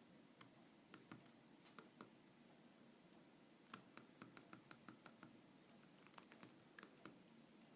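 Faint, irregular clicks of a Nokia 2610's keypad buttons being pressed, with a quick run of presses near the middle.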